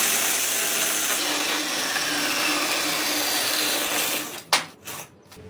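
A small electric motor, like a power tool, runs with a steady whir, stops about four seconds in, and is followed by a sharp click.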